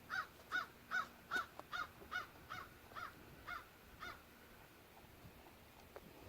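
A bird calling outdoors: a quick run of about ten calls, a little under half a second apart, growing fainter and stopping about four seconds in.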